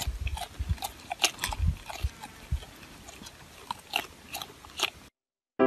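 Alpaca chewing: irregular soft clicks and low thumps that stop about five seconds in.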